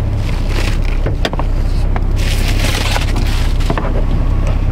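Car engine idling with a steady low hum, heard from inside the cabin. A few clicks about a second in and near the end, and a spell of rustling, hissy noise around two to three seconds in, come from someone reaching across the seats toward the door.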